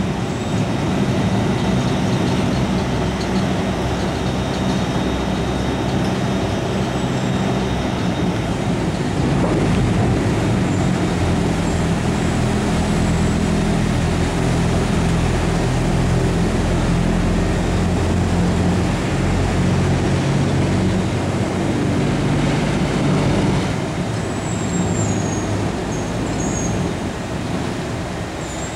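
Bucyrus-Erie 1250 walking dragline walking on its feet: a loud, steady machinery drone with a low hum that wavers in pitch, easing off a little near the end.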